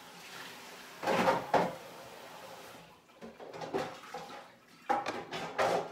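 Kitchen handling noise: dishes and utensils clattering and scraping in a few short bursts, the loudest about a second in and another cluster in the last few seconds.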